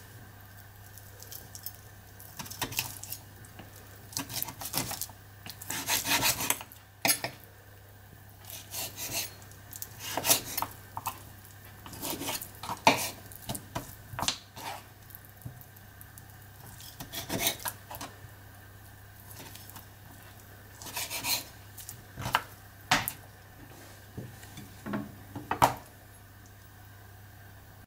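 Kitchen utensils and dishes being handled: irregular clinks, knocks and scraping strokes against bowls or pans during food preparation, over a steady low hum.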